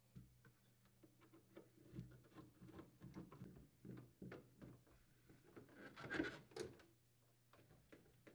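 Faint clicks and scrapes of a Phillips screwdriver unthreading screws from a freezer's plastic evaporator cover, with louder handling noise about six seconds in.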